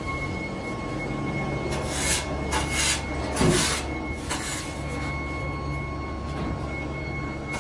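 Steel shovel scraping across the floor and scooping foundry moulding sand several times, between about two and four and a half seconds in, over a steady machinery hum with a faint whine.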